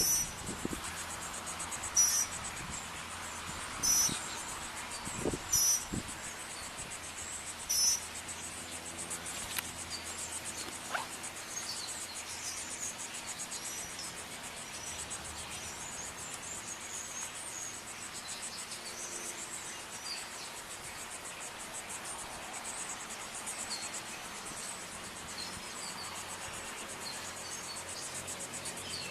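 Insects trilling steadily in a high, fast pulse. In the first several seconds, loud short high chirps repeat about every two seconds, then stop.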